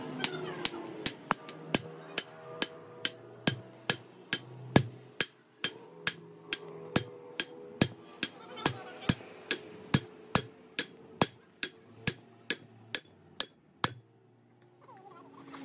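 Hand hammer striking the top of a steel driver sleeve set over an axle shaft, steady sharp metallic blows about two to three a second with a high ring, stopping near the end.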